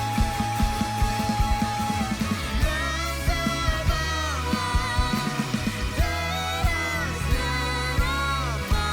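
A band playing a song: a steady drum beat under sustained bass, with a lead melody that slides up and down between notes.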